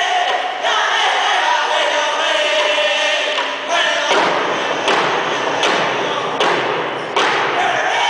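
Powwow hand-drum singers chanting in unison while beating hand-held frame drums. About four seconds in, the singing drops back and loud drum beats, roughly one every three-quarters of a second, take over, then the singing picks up again near the end.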